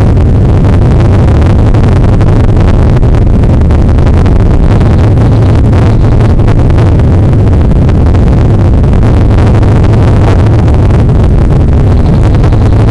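Bell UH-1 Huey's gas turbine engine and two-blade main rotor running on the ground, heard from inside the cockpit as a loud, steady noise with a heavy low hum.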